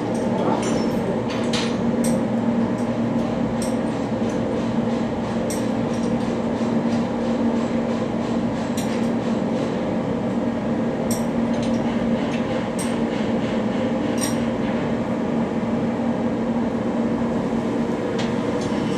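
Steady machinery drone with a constant hum, with a few light metallic clinks scattered through it.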